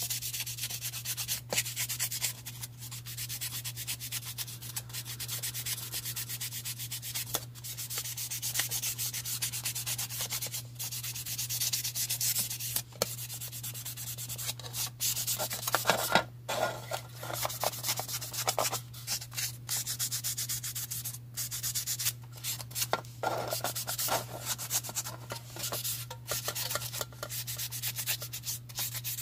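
Hand-sanding the plastic body of a Chrysler 300 model kit to prep it for primer: a continuous hissing rub of back-and-forth strokes, broken by many short pauses between passes.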